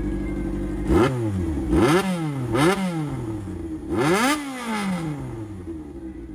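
Yamaha XJR400's air-cooled inline-four engine revved in a rhythmic pattern of four quick throttle blips, each pitch shooting up and falling back, the last one held a little longer, then settling back to idle.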